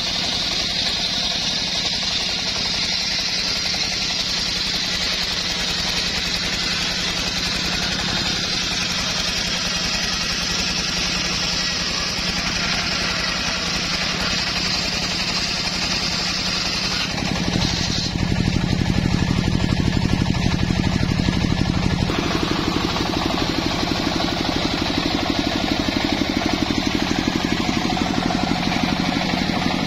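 Homemade engine-driven circular sawmill running steadily, its large blade ripping through a mahogany log. The engine note turns louder and heavier about seventeen seconds in.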